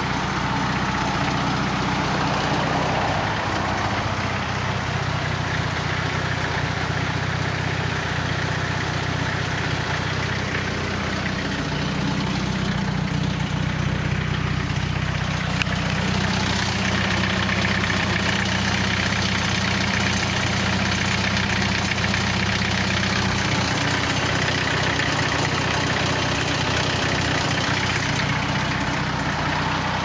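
Nissan 240SX's turbocharged KA24 four-cylinder idling steadily, with the rattling engine noise that its owner says the car is still making.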